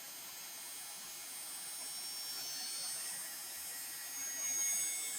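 Forest insect chorus: many insects shrilling together in steady high tones, swelling a little near the end.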